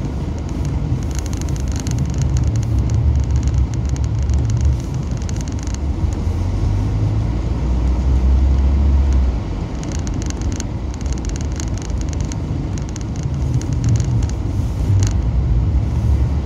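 Car running slowly over snow-covered streets, heard from inside the cabin: a low engine and tyre rumble that eases off about nine seconds in, with faint crackling from the tyres on packed snow.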